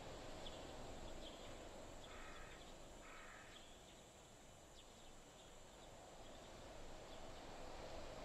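Near silence: a faint steady hiss, with two brief faint sounds about two and three seconds in.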